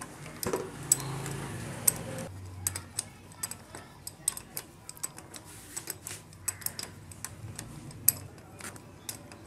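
Irregular metallic clicks and clinks of hand tools and bolts as a T-wrench works on a motorcycle's carburetor mounting, with a low hum in the first two seconds.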